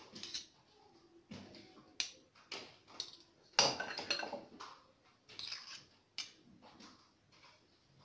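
Spoon and utensils clinking and scraping against glasses and dishes as a drink is assembled: a string of irregular knocks, the loudest about three and a half seconds in.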